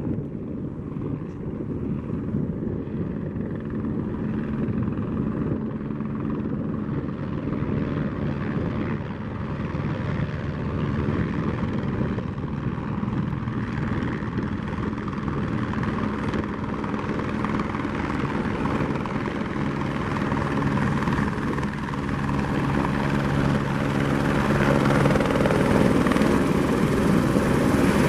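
Eurocopter AS350 B3 helicopter running, its rotor and single turbine engine sounding steadily and growing gradually louder, with more hiss coming in over the last several seconds.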